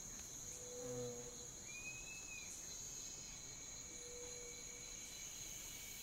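Swamp night ambience: a steady, high-pitched chorus of crickets and other insects, with a few short low calls, about a second in and again about four seconds in.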